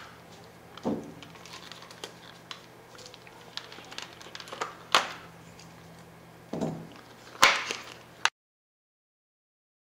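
Plastic clicks and knocks from an HP CC530A toner cartridge being handled while its end pieces come off, a few sharp knocks over a faint hum. The sound cuts out completely a little after eight seconds in.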